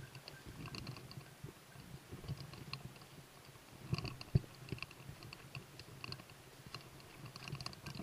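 Footsteps crunching and rustling through dry leaves and brush, with one sharp crack about four seconds in. Over them, a hunting dog's bell tinkles in short, irregular jingles.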